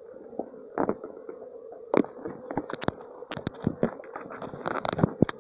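Dry leaves and twigs crackling, scraping and snapping in a quick irregular string from about a second in, over the steady hum of a honeybee swarm.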